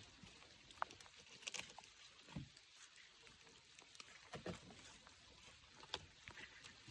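Near silence: a faint outdoor background with a few scattered small clicks and knocks.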